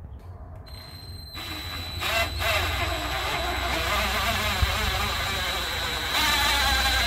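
Bauer cordless drill running, its long bit boring a hole down into 3/4-inch plywood. The motor starts about a second in with a steady high whine and gets louder near the end as the bit bears down.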